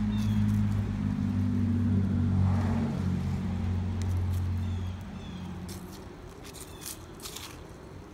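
A low motor hum of several steady tones that stops about five seconds in. Light clicks and ticks follow.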